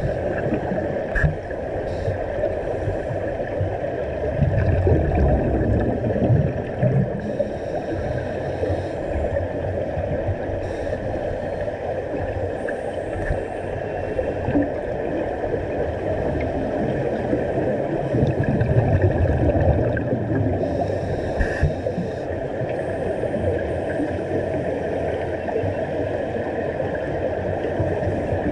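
Underwater sound picked up by a GoPro in its waterproof housing during a scuba dive: a steady rushing hum of moving water and bubbles. Twice it swells into a louder low gurgling, typical of a diver's regulator exhaling a burst of bubbles.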